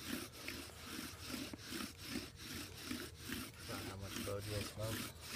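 Bow drill being worked: the wooden spindle is spun back and forth by the bow, grinding in the hearth-board socket with an even rasping rhythm of about three to four strokes a second. The socket is being burned in.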